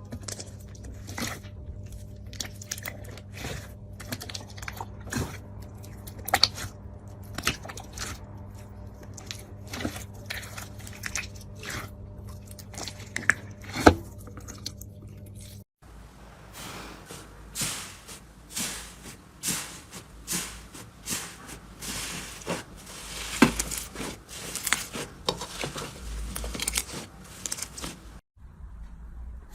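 Slime being worked and squished, giving a dense run of irregular crackles and sharp pops; the clip changes about halfway through to a busier crackling.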